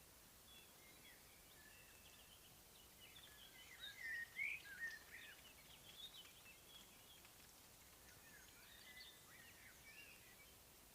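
Songbirds singing outdoors in spring: short chirps and whistled phrases, loudest in a quick run about four to five seconds in, with more calls near the end.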